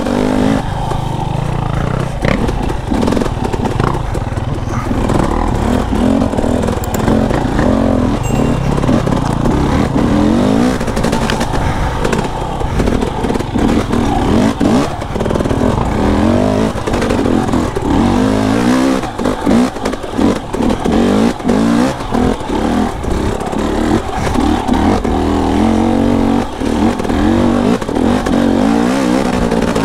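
KTM enduro dirt bike engine being ridden along tight single track, revving up and falling back over and over as the throttle is opened and rolled off, with brief drops in level.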